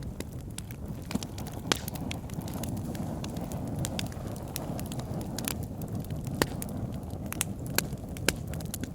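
Wood fire burning in a fireplace: a steady low rumble of the flames with irregular sharp crackles and pops, a few louder snaps among them.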